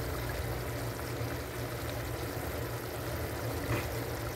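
Squid simmering in a dark sauce in a pan on the stove: a steady bubbling, sizzling hiss over a low hum.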